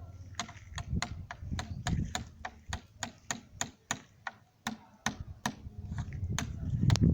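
Hammer tapping a nail to punch small holes in a jerrycan: quick, light, even strikes, about three a second. A low rumble builds near the end.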